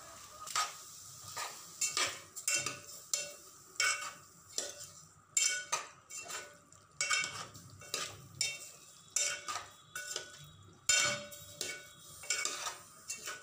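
A spoon stirring cubed shark fish with masala in an aluminium pot, clinking and scraping against the pot's sides in irregular strokes, one to two a second.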